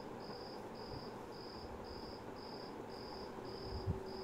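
A cricket chirping steadily, about two chirps a second, with a faint low hum coming in partway through and a single dull thump near the end.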